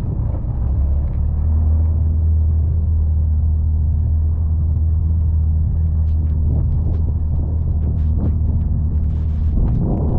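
Can-Am Defender side-by-side's engine running steadily with a low drone, building slightly in the first second or two. Scattered clicks and scrapes join in over the last few seconds.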